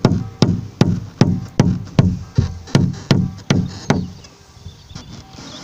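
Knocking, evenly spaced at about three a second, each knock with a short low ring; it stops about four seconds in.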